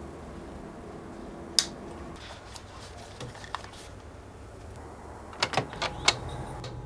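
Clicks from the controls of a DJ turntable and mixer in a quiet room with a low electrical hum: one sharp click a little over a second in, then a quick run of four or five clicks near the end.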